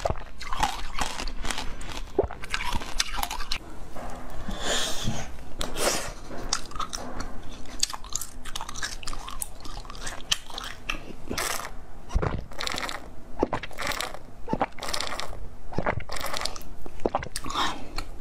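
Biting into and chewing frozen jelly, a dense run of sharp, crackling crunches one after another.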